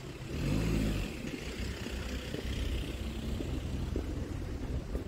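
Engine of a road vehicle passing close by, loudest about half a second in and then running on at a lower level.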